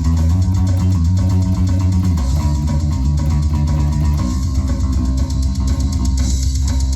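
Electric bass guitar played solo through an amplifier: a line of held low notes, with the pitch moving to new notes about two seconds in and again about four seconds in.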